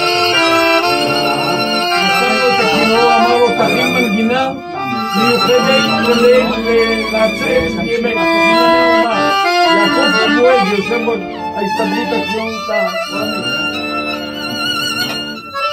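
Violin music: a violin playing a melody over other instruments beneath it.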